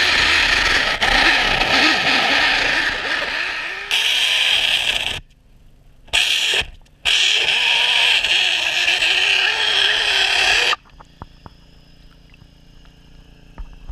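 Motor-driven machinery running loudly, heard from under water, with a steady whine over a wavering low drone. It cuts out abruptly about five seconds in, returns for a moment and then for about four seconds more, and stops for good about eleven seconds in, leaving only faint clicks and ticks.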